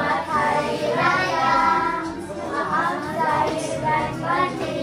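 A child's high voice singing, with the held, bending notes of a sung line.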